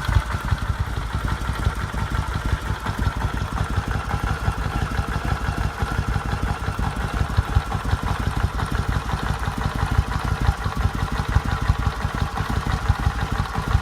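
Kawasaki VN 1500's V-twin idling steadily through its stock exhaust, a quick even stream of low pulses with no revving.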